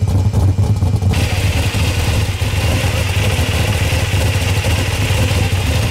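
Supercharged V8 of a 1941 Willys blown gasser idling with a steady deep rumble.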